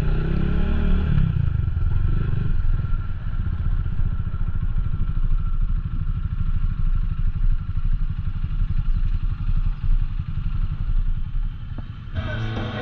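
Motorcycle engine running while riding, a steady low pulsing; music starts near the end.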